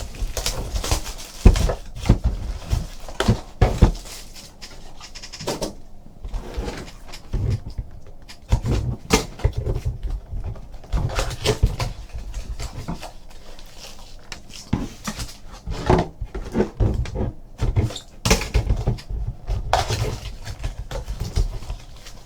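Irregular rustling, crinkling and clicking of a trading-card hobby box being opened by hand: plastic wrap and cardboard handled in a string of short, uneven noises with no steady sound beneath.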